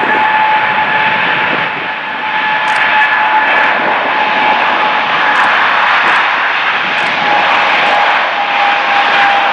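Boeing 777-300ER's GE90-115B turbofan engines running loud on the runway: a steady jet roar with a clear fan whine. The whine drops slightly in pitch near the end.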